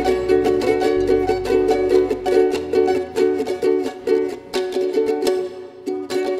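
Instrumental background music of quick plucked-string notes; a low bass part drops out a couple of seconds in.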